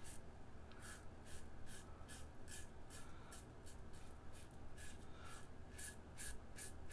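Razorock Eco safety razor with a Crown half blade scraping stubble through shaving lather on the cheek and neck: short rasping strokes, about three a second. The blade gives serious feedback as it cuts the whiskers.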